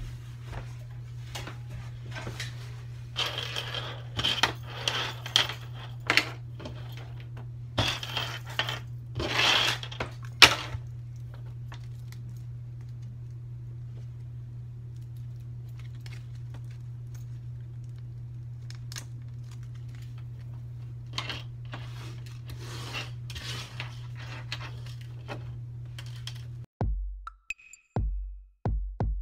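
Clear plastic badge holders crinkling and clicking in short bunches as they are handled and lanyards are fitted to them, over a steady low hum. Near the end, electronic music with a drum-machine beat starts.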